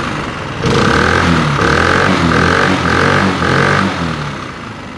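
Small four-stroke gas engine of a new boat motor running on its first start, out of the water with no load, revved in about five short throttle blips before easing back toward idle.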